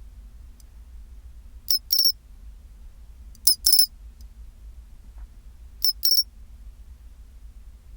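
Japanese pine cricket (Xenogryllus marmoratus) calling its "chin-chirorin" song three times, about two seconds apart. Each call is a short high chirp followed at once by a quick double chirp. A faint low hum runs underneath.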